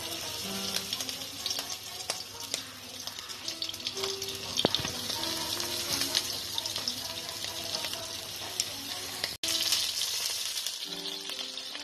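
Flour-coated oysters sizzling in hot oil in a frying pan, a steady hiss with scattered crackles, louder after a brief break about nine seconds in.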